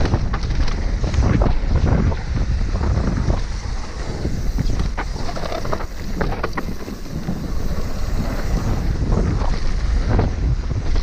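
Wind buffeting the microphone of a camera riding on an enduro mountain bike descending a dusty dirt trail, with tyres crunching over the dirt and the bike rattling and knocking over bumps.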